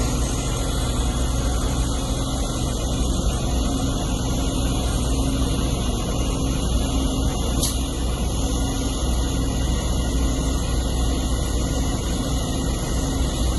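Heavy diesel machinery engines running steadily at a constant pace, a continuous low drone with no change in speed.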